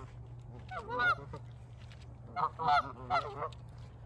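Geese honking: one call about a second in, then a quick run of several honks.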